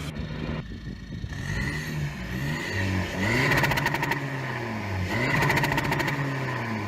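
Car engine revved repeatedly against a popcorn limiter, its revs rising and falling in waves. Two runs of rapid popping, one in the middle and one near the end, are the limiter interrupting fuel many times a second at the rev limit.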